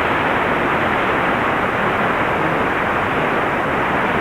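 Steady hiss of AM radio static from a weak broadcast signal received on a software-defined radio. The sound is an even rush with no voice, cut off above about 4 kHz.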